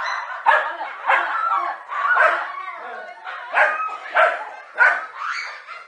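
Dogs barking over and over in short barks, about eight in a row with brief gaps: agitated barking at a cobra they are facing.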